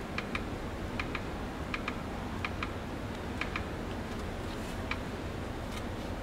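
Push-button switch on a camping lantern clicking in press-and-release pairs, five pairs in the first four seconds, then two single clicks, as the lantern is switched through its light modes. A steady low hiss lies underneath.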